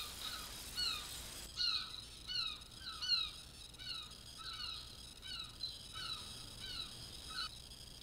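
A bird calling repeatedly: about a dozen short, clear, downward-sliding notes at about two a second, stopping shortly before the end.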